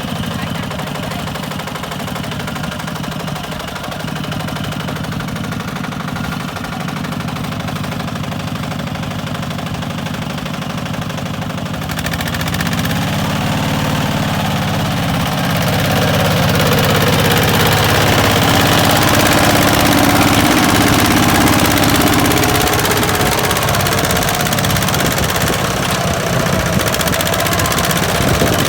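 Diesel tractor engine running steadily with a knocking clatter. About halfway through it changes and grows louder, working harder for the rest.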